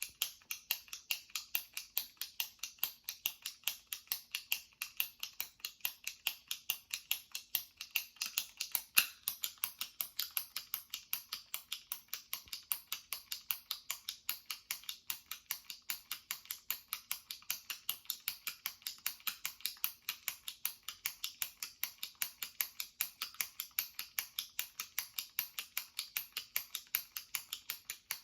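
Jumbo retractable pen being clicked over and over by pressing its top button: sharp, even clicks at about three a second.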